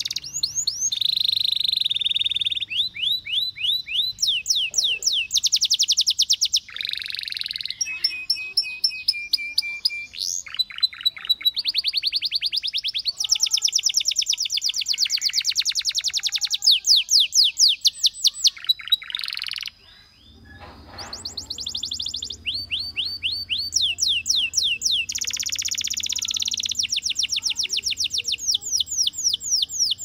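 Domestic canary singing a long song of rapid high trills and rolls, each phrase a fast run of repeated notes before switching to the next, with a short break about twenty seconds in.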